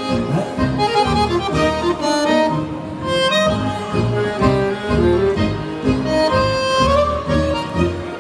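Bandoneon playing a melody of held, reedy notes over a pulsing bass line.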